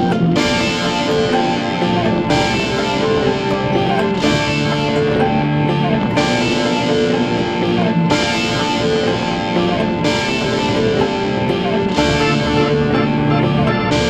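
Music track led by guitar, playing steadily, with a short break in the treble roughly every two seconds.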